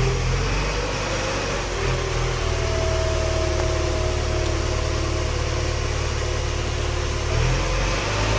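A vehicle engine running steadily while on the move, over a steady hiss of road and wind noise.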